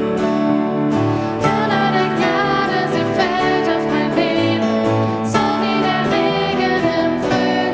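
Worship song played on acoustic guitar and piano; women's voices start singing about a second and a half in.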